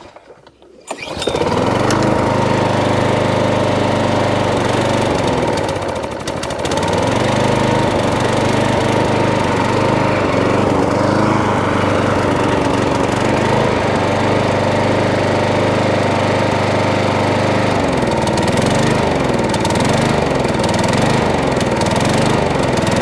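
Hayter 41 self-propelled petrol lawn mower engine starting about a second in and running steadily, with a brief dip around six seconds. In the last five seconds its note wavers up and down.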